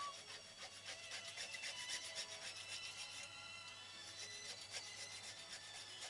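Rapid rasping scrape of many quick strokes from hand work at a locksmith's bench, stopping a little past three seconds in, with music playing underneath.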